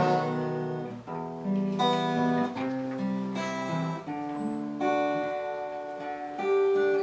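Acoustic guitar playing slow chords without singing, each chord struck and left to ring, with a new chord about every second or two.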